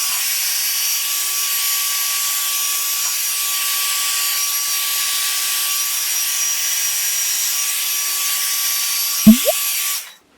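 Small handheld hair dryer running steadily: a constant rush of air with a steady motor whine as it blows poured acrylic paint outward across a canvas. Near the end there is a short, loud sound with a rising pitch, and the dryer then cuts off.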